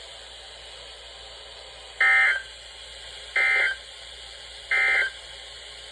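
NOAA Weather Radio Emergency Alert System data bursts: three short bursts of warbling data tones about 1.3 seconds apart over faint radio hiss. This is the SAME end-of-message code that closes a broadcast warning.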